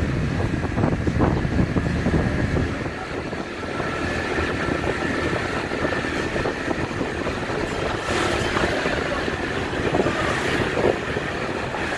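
Small motor scooter engine running steadily as it rides down a street, heard from the pillion seat: a continuous drone mixed with road noise.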